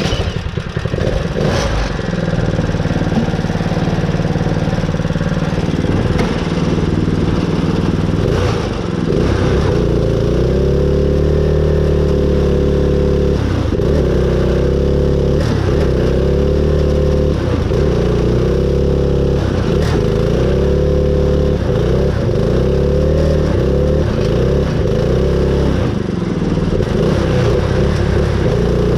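Custom Craftsman riding-mower mud mower's engine catching at the start, then running steadily at high throttle. From about ten seconds in its pitch wavers up and down repeatedly as it works in deep mud.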